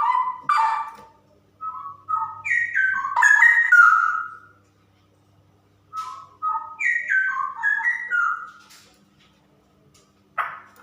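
Female straw-headed bulbul (cucak rowo) singing: loud bouts of whistled phrases, each a quick run of notes stepping down in pitch, with pauses of about two seconds between bouts.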